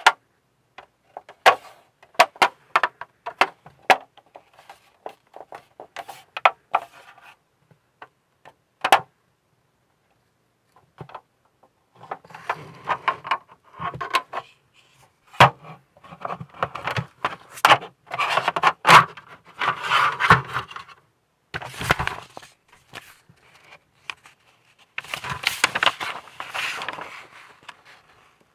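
Plastic scale-model hull parts being handled: a run of sharp clicks and taps as the pieces knock together, then after a short pause denser scraping and rubbing of plastic against plastic and the tabletop.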